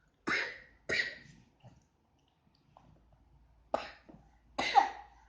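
A person coughing: two quick coughs near the start, then two more spaced out later, the last the loudest with a brief voiced tail.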